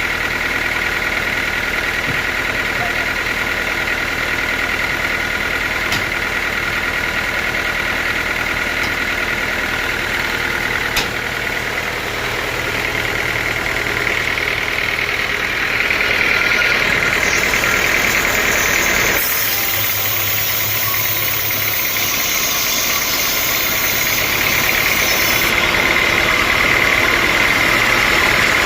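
Sawmill machinery running steadily with a continuous mechanical hum and whine. The sound changes abruptly about nineteen seconds in, turning hissier, and changes again about six seconds later.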